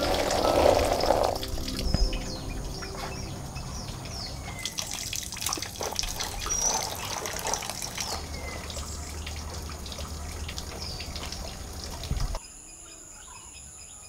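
Hands stirring and pressing wet coffee cherries in a woven bamboo tray: a burst of watery noise at the start, then a run of small clicks and rustles as the berries shift, with birds chirping. About twelve seconds in it cuts to quieter birdsong.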